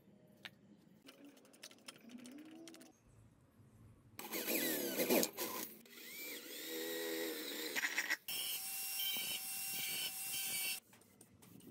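Faint scraping and clicks of hands working on an old metal paint tin, then an electric drill boring through the tin's metal lid for about four seconds. An angle grinder with a cutting disc then cuts into the tin's side for about two and a half seconds and stops suddenly near the end.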